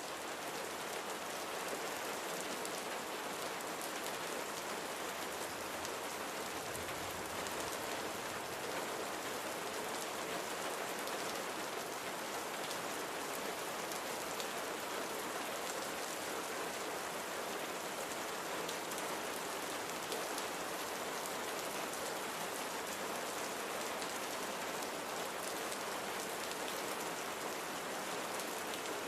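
Steady rain falling on a surface, a continuous even hiss with fine pattering drops.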